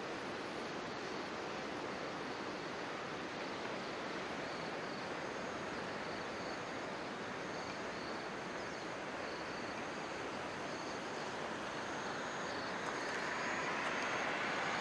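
Steady outdoor background noise with no distinct events, getting louder in the last couple of seconds.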